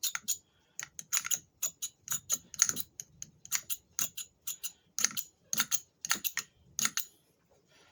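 A lighter being clicked over and over to light a candle: a string of sharp, irregular clicks, about two or three a second.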